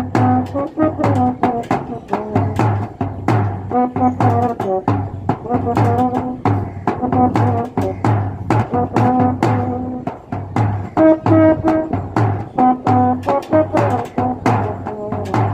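A euphonium playing a melody in held, changing notes, with a stick-beaten side drum keeping a steady beat under it.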